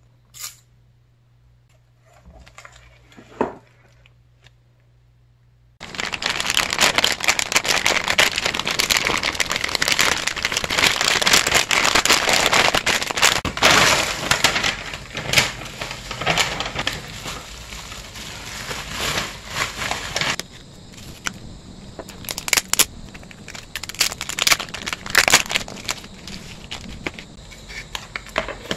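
Plastic packaging, a bubble-wrap mailer and plastic photocard sleeves, being handled and opened: a dense crinkling run of many small sharp crackles. It starts suddenly about six seconds in, after a few soft clicks, and thins to scattered sharp crackles in the last third.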